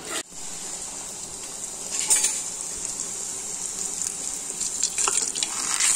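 Bhatura dough deep-frying in hot oil in a kadai: steady sizzling, with a louder burst of crackling about two seconds in.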